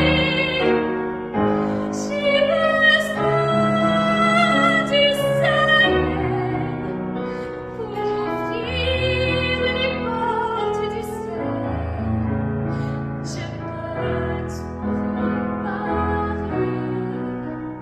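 Female solo voice singing a slow song in French, with held notes, over piano accompaniment.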